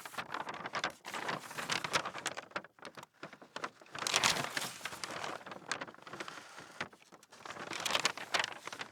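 Irregular rustling and crackling in uneven bursts, like something being handled.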